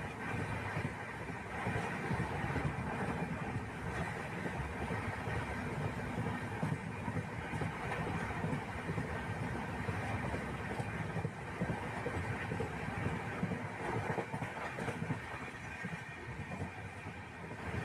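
Steady low rumble of a vehicle in motion, with faint clatter running through it.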